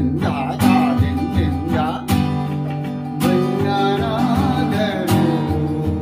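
Acoustic guitar strummed with downstrokes in a 16-beat Teen Taal based pattern, chords ringing between strong strikes, with a man's voice singing a wavering melody over it.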